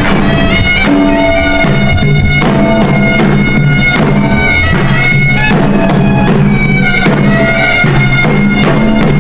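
Loud traditional music: a reedy wind-instrument melody over held low notes, with drum strokes.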